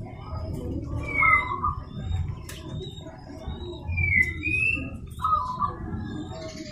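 Zebra dove (perkutut) calling: short whistled cooing phrases with gliding notes, three times, over a steady low background noise.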